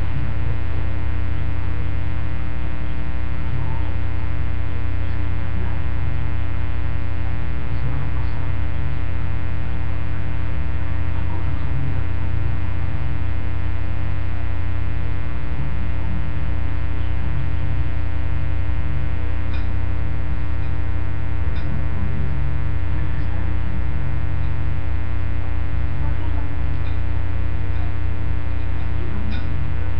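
Loud, steady electrical mains hum, a low buzz with a dense stack of overtones that does not change, typical of a ground loop or interference on the audio line.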